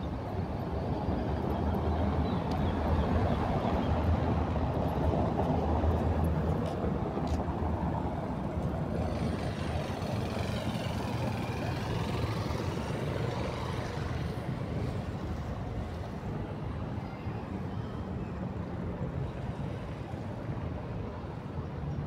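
Steady low rumble of a car driving slowly through town streets, with engine and tyre noise on the paving.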